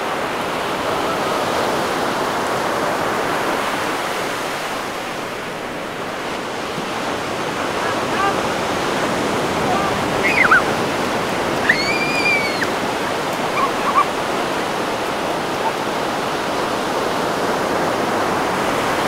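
Ocean surf breaking and washing up a sandy beach, a steady rush. A few high children's calls rise and fall over it about ten to thirteen seconds in.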